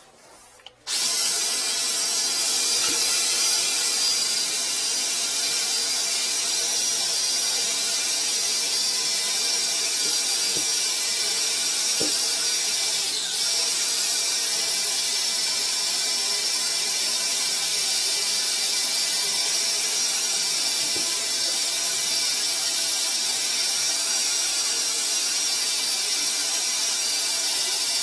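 Flex-shaft drain-cleaning machine running, its motor spinning the cable inside a clogged sink drain pipe. A steady, loud noise that starts abruptly about a second in.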